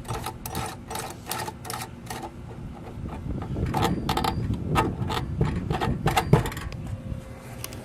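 Quick run of small clicks and rattles from handling the sink's pop-up drain parts (pivot rod, ball, washer and nut) at the drain body, with a low rumble swelling through the middle.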